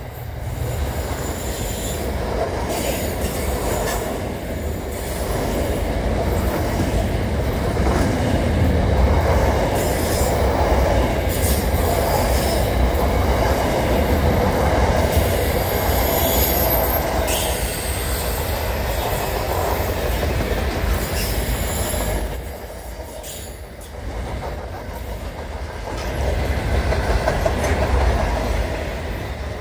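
Freight train's container wagons rolling past: a steady rumble of steel wheels on rail with scattered clicks and brief high-pitched wheel squeals. The noise dips for a moment about three-quarters of the way through.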